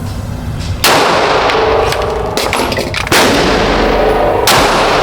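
Three pistol shots, each followed by a long ring-out: one about a second in, one just past the three-second mark, and a third shortly after that.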